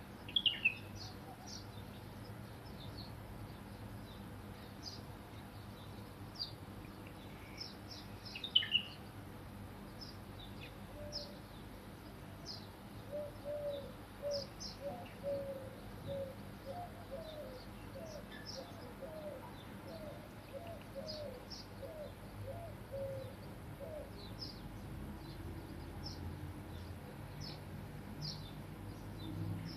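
Birds chirping, with short high chirps scattered throughout and two louder ones near the start and about eight and a half seconds in. From about eleven to twenty-three seconds a pigeon gives a run of low cooing notes, about two a second.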